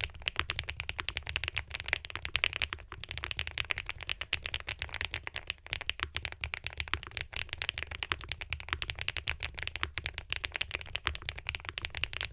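Fast, continuous typing on a custom mechanical keyboard with HMX switches and round keycaps: a dense, steady run of keystroke clacks.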